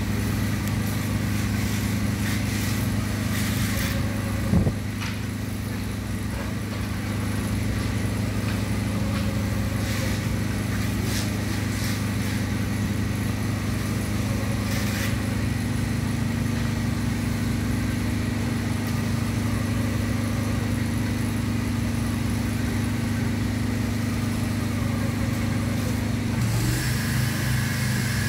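Screeding machinery running steadily: a screed robot and a power float working a sand-cement screed, giving an even motor hum. It is broken by a few knocks and scrapes of a hand rake in the screed, and the hum shifts pitch slightly near the end.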